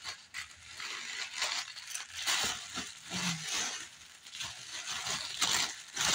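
Tissue paper rustling and crinkling in irregular bursts as a wrapped gift is pulled open by hand, louder in the second half.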